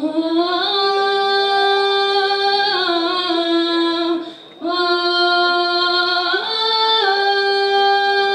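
Female singing of a slow devotional song to the Virgin, holding long notes that slide from one pitch to the next, with a brief break for breath about four and a half seconds in.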